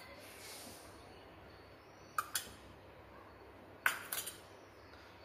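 Steel kitchen utensils clinking lightly against each other: two quick clinks about two seconds in, then a cluster of three or four about four seconds in, each with a brief metallic ring, over a faint hiss.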